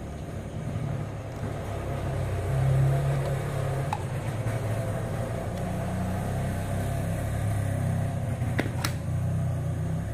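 A steady low mechanical rumble, with a few light clicks from a plastic-and-metal camera mount being handled.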